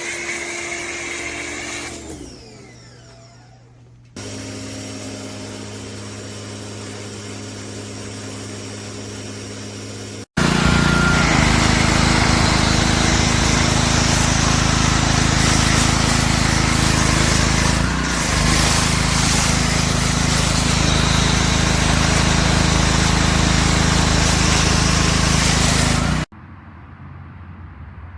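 Electric pressure washer running: its motor hums steadily, then about ten seconds in it is much louder, with an even hiss of high-pressure water spray over the motor hum for about sixteen seconds, and it cuts off suddenly.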